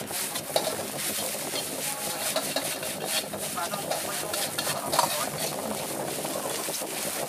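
A metal wok ladle repeatedly scraping and knocking against a steel wok as noodles are stir-fried, over a steady sizzle of frying.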